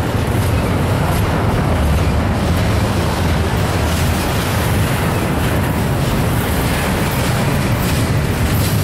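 Norfolk Southern double-stack intermodal well cars rolling past, a steady rumble of steel wheels on rail.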